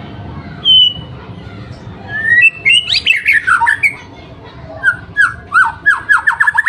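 White-rumped shama singing: a short whistled note about a second in, a run of gliding whistles around three seconds in, then a quickening series of short downward-sliding notes near the end.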